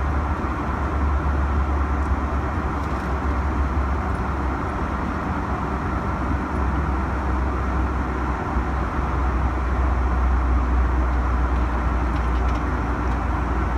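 Steady in-flight cabin noise of a Boeing 737-900 airliner: engine and airflow noise heard from a window seat, a deep even drone under a steady hiss.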